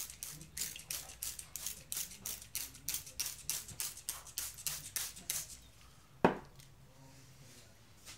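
Hand-held trigger spray bottle squirting water onto a paper towel to dampen it: a quick, even run of short spray hisses, about three a second, that stops a little past halfway. About a second later comes a single sharp knock, the loudest sound.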